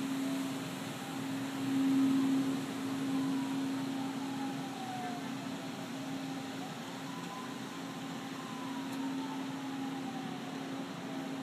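A steady mechanical hum over a hiss, like a fan or air-conditioning unit running, with faint tones that slowly glide up and down in pitch. No thunder is heard.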